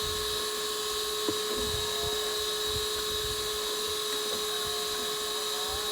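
A small motor running steadily, a hum with a high, even whine that does not change.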